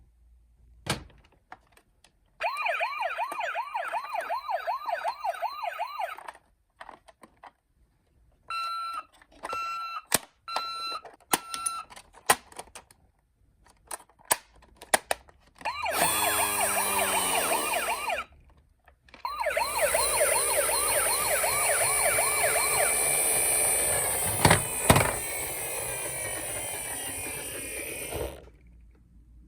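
Electronic siren sound effects of toy ambulance minicars: a fast warbling siren for a few seconds, then short repeated beeps among small clicks, then several sirens sounding together for most of the last ten seconds before cutting off near the end.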